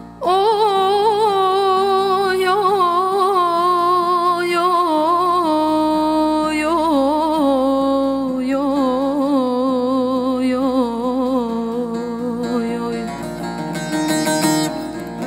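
Turkish uzun hava folk music with bağlama: a long, free-rhythm, heavily ornamented melodic line that starts abruptly and slowly falls in pitch over a steady low drone, with a burst of quick tremolo strumming near the end.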